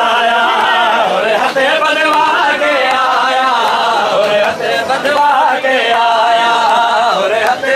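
A crowd of men chanting a Shia mourning chant together during matam, with a few sharp slaps of hands striking bare chests.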